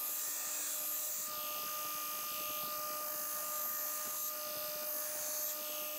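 Belt grinder running with a steady hum while a steel knife blade is ground freehand against the belt for the pre-heat-treat bevel. The high grinding hiss swells and fades a few times as the blade is worked.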